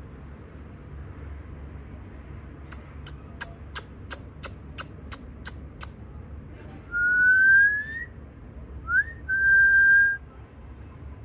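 A person whistling close by: one rising note, a short upswept note, then a held steady note. Before that come about ten sharp clicks, roughly three a second.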